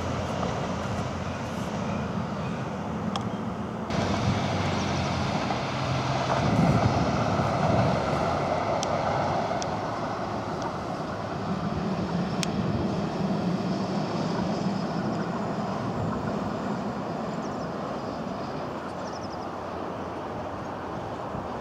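Electric tram running along its track: a steady rumble of wheels on rail with a low motor hum and a few sharp clicks. The sound changes abruptly about four seconds in.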